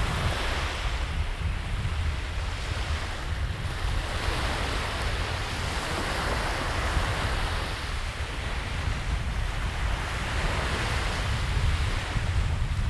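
Sea waves washing, a steady noise that swells and eases every few seconds, with wind rumbling on the microphone.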